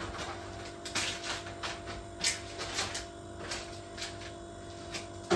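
Frozen food packages and freezer drawers being handled and put back: scattered clicks, knocks and plastic rustles, with a sharper knock near the end.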